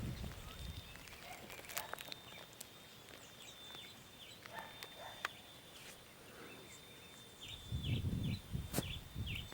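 Outdoor ambience with small birds chirping faintly in short, quick notes, a few sharp clicks, and a thin steady high-pitched tone. Low rumbling gusts come in near the end.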